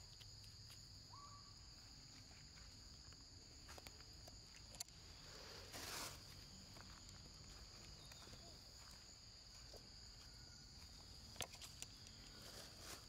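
Faint, steady high-pitched drone of forest insects, with a few soft clicks and rustles scattered through it.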